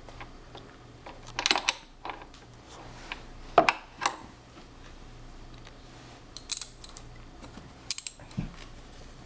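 Socket wrench ratchet clicking and metal clinking in a few scattered, irregular bursts as a toddler works it.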